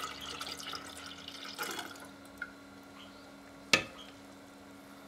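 Grape juice pouring from a jug into a glass jar, splashing and then tapering off about two seconds in. One sharp knock comes near the end.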